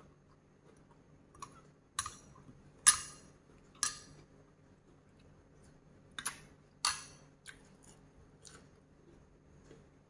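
Metal spoon clinking against a glass dipping-sauce bowl: several sharp clinks, the loudest about three seconds in, with quiet chewing between them.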